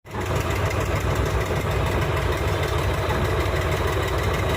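Heavy-equipment diesel engine running steadily at a low, even speed.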